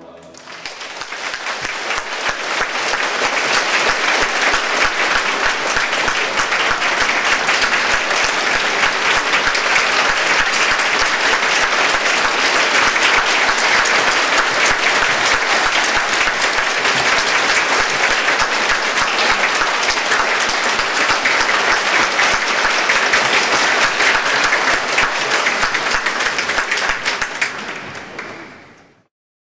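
Concert audience applauding: dense, steady clapping that builds over the first few seconds, holds, then fades out near the end.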